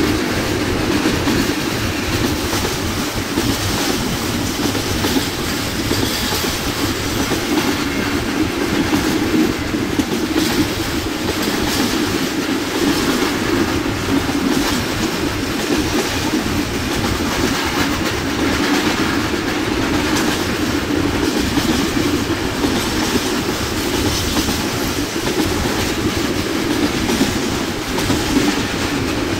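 Intermodal freight train of container flat wagons rolling past, a steady loud rumble with the wheels clicking over the rail joints.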